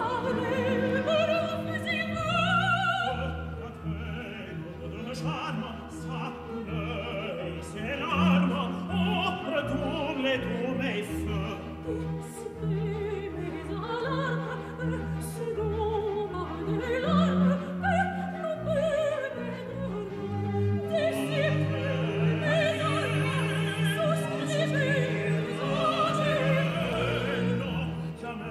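Operatic singing with a wide vibrato over orchestral accompaniment, continuous with no pause.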